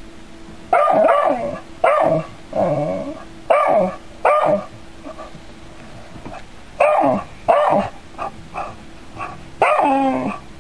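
Dog barking at a robot cat: a string of short barks and yips. There are four or five barks, a pause of about two seconds, then two more barks, a few softer yips and one last longer bark near the end.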